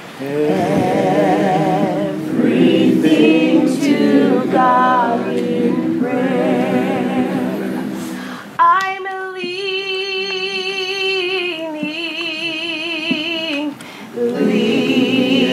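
Unaccompanied women's voices singing a worship song. About two-thirds of the way through, a single voice carries on alone, holding long notes with a wide vibrato; near the end the fuller singing comes back.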